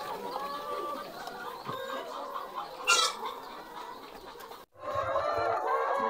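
A flock of laying hens clucking, with one sharper squawk about three seconds in. After a brief break near the end, the clucking comes back louder and busier.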